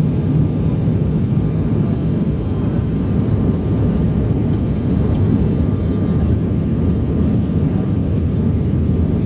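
Steady low cabin noise of a passenger aircraft in flight, engine and airflow heard from inside the cabin, with a faint steady hum above it.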